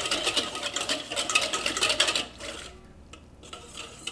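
Whisk beating a vinaigrette in a stainless steel mixing bowl: a fast run of metal clicks and scrapes against the bowl that stops about two seconds in.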